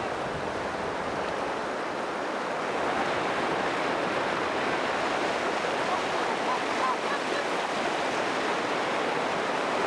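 River rapids rushing steadily, a dense continuous sound of white water.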